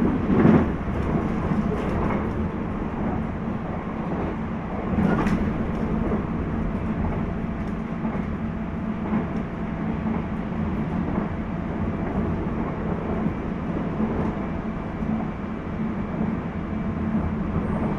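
Running noise heard inside a JR East 719 series electric train car (KuMoHa 719-1): a steady rumble and hum under way, with a couple of heavier thumps from the track, one near the start and one about five seconds in. This is the car the recordist suspects of having an unusual noise.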